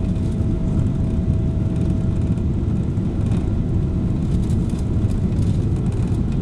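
Steady cabin roar inside a Boeing 777-300ER, heard at a window seat: its GE90-115B engines and the airflow past the fuselage during the descent to land. A faint steady high hum runs alongside and fades out about five seconds in.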